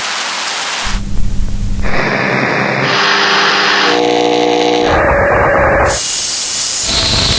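A run of synthetic noise samples: white, pink, brown and band-filtered noise, switching abruptly to a new colour about every second, from a deep rumble to a high hiss. About four seconds in, one sample is a steady hum of several evenly spaced tones instead of plain noise.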